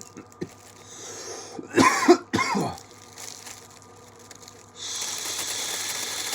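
A man coughing hard two or three times about two seconds in. Near the end a steady hiss starts and keeps going.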